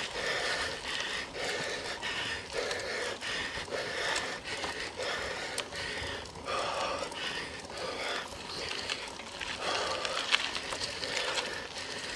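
A cyclist breathing hard in quick, rhythmic pants from the effort of pedalling up a steep hill.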